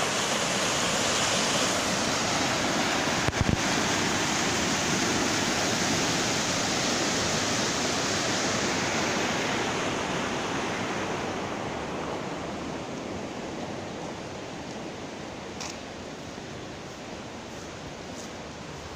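Fast stream rushing over rocks in a steady white-water roar that fades gradually through the second half. There is a brief knock about three seconds in.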